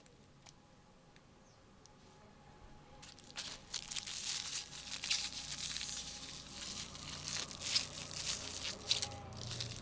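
Aluminium foil being crinkled and crumpled by hands, a dense, irregular crackling that starts about three seconds in after a quiet opening.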